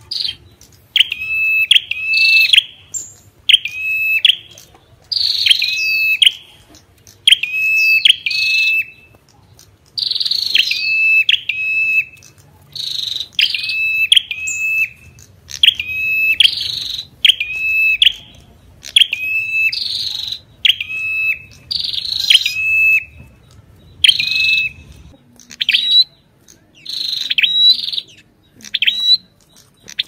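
Ashy tailorbird (Orthotomus ruficeps) calling: short, sharp notes repeated one or two a second, often in quick pairs. In the last few seconds the notes change to a higher, different pattern.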